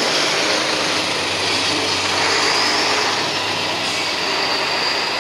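A large coach's diesel engine running steadily as the coach pulls away and drives past, with a low hum under the road noise.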